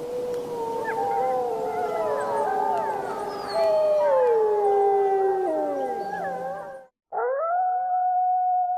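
Several wolves howling together, long overlapping howls that slide up and down in pitch, ending in an abrupt cut about seven seconds in. A single wolf howl then starts, rising and then held on one note.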